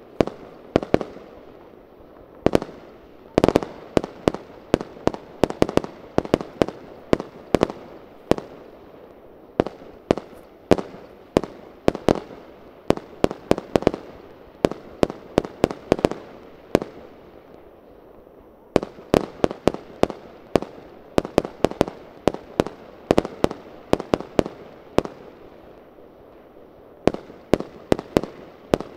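Aerial fireworks bursting: a fast, irregular run of sharp bangs, often several in quick succession, each with a short echoing tail, broken by a couple of brief lulls.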